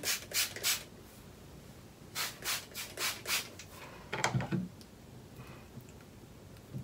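Hairbrush brushing through thick natural hair in short, quick strokes: about three in the first second, then four more around two to three and a half seconds in. A dull knock follows a little after four seconds.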